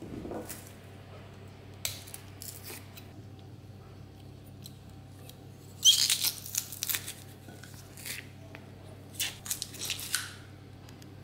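Light knife clicks and scrapes on papery garlic skins against a wooden tabletop, then a sharp clatter about six seconds in. A cluster of clicks and crunches follows near the end as a metal garlic press squeezes garlic cloves into a ceramic bowl.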